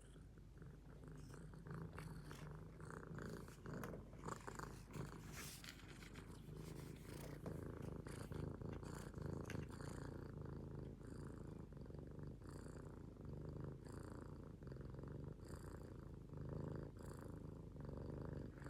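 Calico cat purring steadily, a low rumble that swells and eases with each breath, with a few soft clicks or rustles in the first half.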